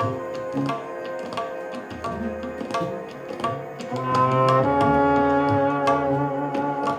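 Live band music: frequent hand-drum or percussion strokes over held pitched notes, with the chord moving to a higher, fuller one about four seconds in.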